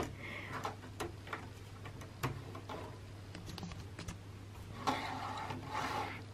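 Hornby Class 47 OO gauge model locomotive running slowly on track toward a set of points: scattered light clicks from the wheels on the rails and from handling, over a low steady hum. A louder rattly stretch comes about five seconds in.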